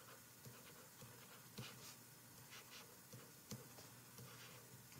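Near silence with faint scratches and a few light ticks of a stylus writing on a tablet.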